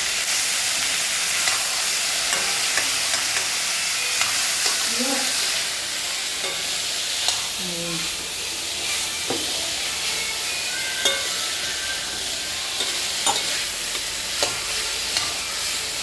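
Potatoes frying in hot oil in a pan, sizzling steadily, with frequent short clicks and scrapes as they are stirred.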